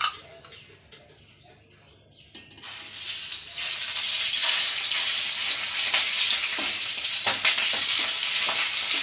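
Rohu fish roe hitting hot mustard oil in a metal kadai: a sudden sizzle starts about two and a half seconds in and keeps going steadily as the roe fries. A spatula stirs through it with faint scrapes against the pan.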